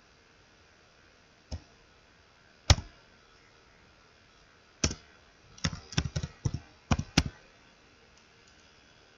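Computer keyboard typing: a few single keystrokes, spaced out, then a quick run of about nine keys a little past halfway.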